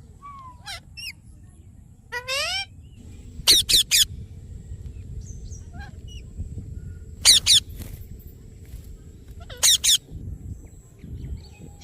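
Indian ringneck parakeet calling: loud, shrill calls in short groups of one to three, a few seconds apart, some rising in pitch, with softer chirps between.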